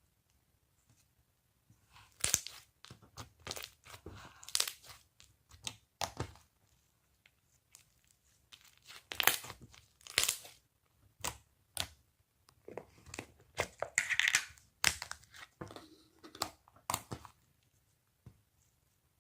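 Slime being squeezed and stretched by hand, giving irregular bursts of crackling and popping.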